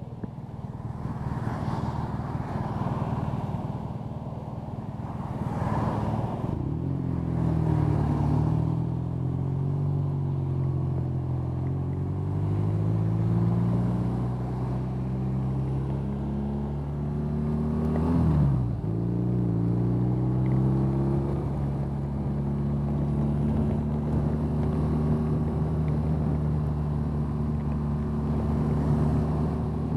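BMW R nineT's 1170 cc boxer twin idling at a stop, then pulling away and accelerating. Its pitch dips and climbs again at a gear change about 18 seconds in, and it settles into a steady cruise. A hiss of wind and rain runs underneath.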